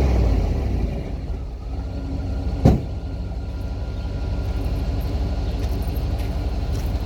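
1993 GMC Yukon's V8 dropping back from a rev in the first second and then idling with a steady, low exhaust pulse, running on stale fuel after sitting all winter. One sharp knock stands out about two and a half seconds in.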